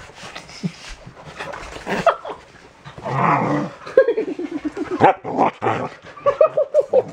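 Puppies yipping and whimpering in rough play at close range, with a quick run of short yips near the end. The sounds are mixed with rustling and handling noise as they scramble over a person.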